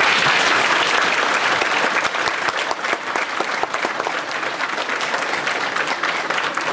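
Audience applauding: dense clapping from many hands, easing off slightly towards the end.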